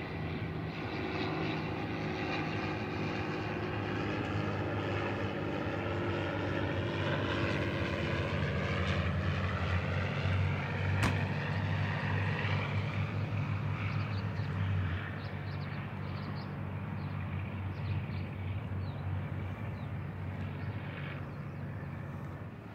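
A small propeller plane flies low overhead, its piston engine droning, with the pitch shifting as it passes. The sound cuts off abruptly at the end.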